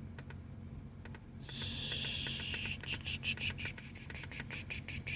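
Handheld diagnostic scanner buttons clicking in quick succession as menus are scrolled, over a low steady hum. About a second and a half in, a louder hiss lasts just over a second, followed by a run of faster clicks.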